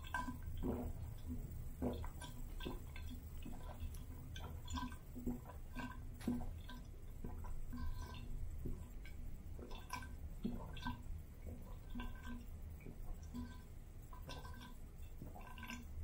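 A man gulping water without pause from a large glass vessel: a steady run of swallows with water sloshing and dripping as some spills. Continuous drinking used to stop hiccups.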